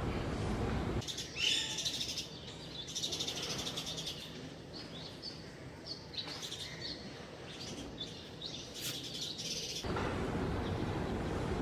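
Small birds chirping and calling in quick short notes, a busy morning chorus. A steady low background noise fills the first second and returns near the end.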